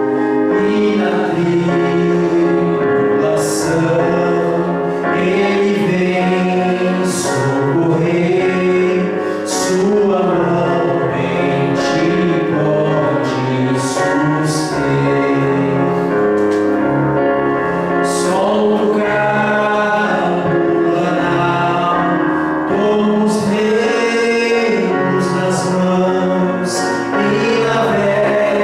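Music: a choir singing a gospel hymn with accompaniment, steady and full throughout.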